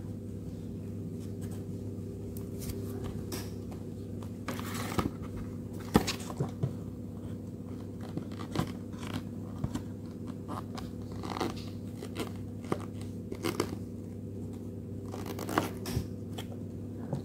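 Printed paper diorama pieces being handled: scattered rustles, crinkles and light taps of card, the sharpest tap about six seconds in, over a steady low hum.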